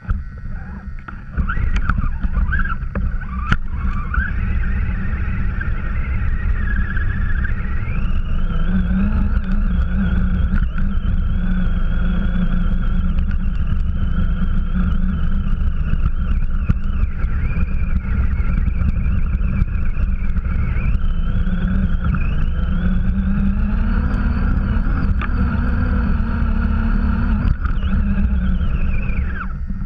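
Onboard sound of an Axial RC truck driving through deep snow: the motor and gears whine, rising and falling in pitch with the throttle, over a heavy rumble from the chassis and the snow against the body.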